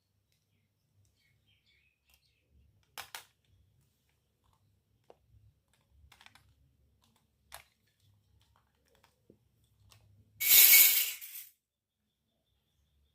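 Small miniature toy kitchen pieces being handled, giving a few light clicks and taps. About ten seconds in there is a louder, noisy rustling scrape lasting about a second.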